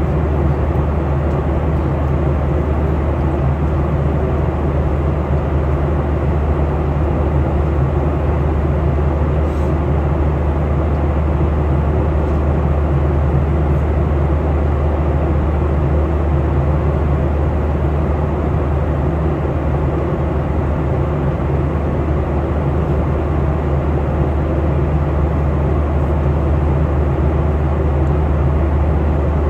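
Airliner cabin noise in flight: a steady, even rush of engine and airflow noise with a deep low rumble.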